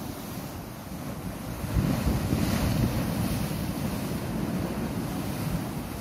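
Sea waves washing in and breaking against coastal rocks, with wind buffeting the microphone; the surf grows louder about two seconds in.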